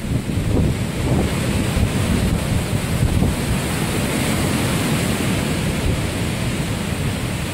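Heavy surf in the days after a hurricane, waves breaking and washing up a beach, with wind buffeting the microphone. The hiss of the wash swells about halfway through.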